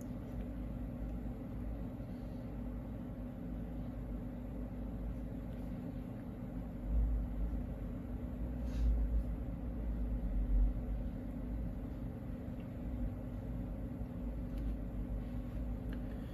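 Steady low hum of background machinery, with a couple of faint taps about nine seconds in.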